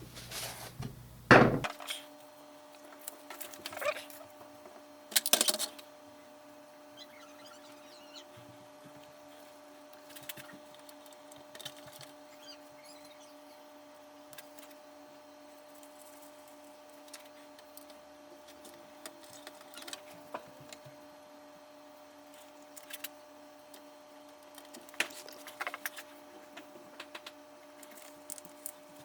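Small handling noises on a workbench: a few sharp knocks and taps in the first six seconds, then scattered faint ticks and clicks, over a steady low electrical hum.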